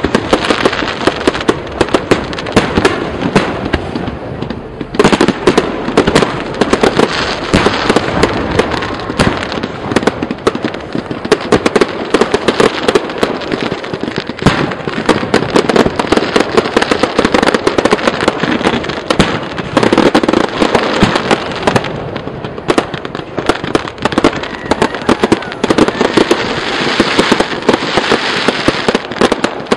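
Fireworks show: a dense, continuous barrage of shell bursts and crackle, many bangs a second with no pause.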